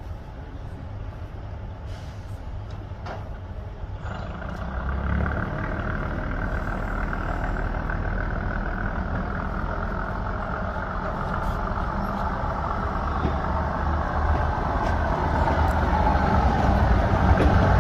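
Diesel multiple unit's underfloor diesel engines running, picking up about four seconds in and growing steadily louder, as of a train pulling away or coming closer.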